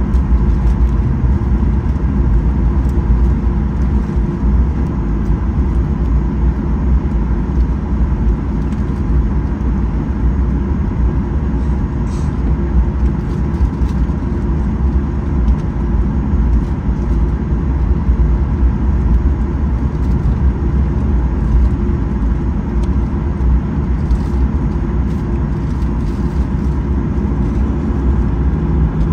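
Cabin noise inside a Boeing 737-800: a steady, deep rumble of its CFM56-7B engines and airflow at constant power, with a faint steady hum above it.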